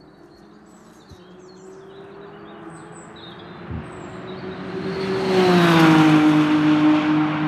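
McLaren Artura race car's 3.0-litre twin-turbo V6 under power, growing louder as the car approaches and then dropping in pitch as it passes, about two-thirds of the way in. Birds chirp faintly before the car arrives.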